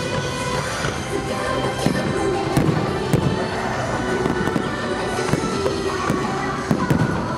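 Fireworks bursting in a string of sharp bangs, irregularly spaced, over anime-song music.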